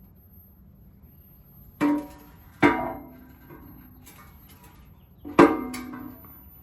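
Metal clanks that ring on briefly: two pairs of knocks from the engine's oil pan being worked loose and taken off.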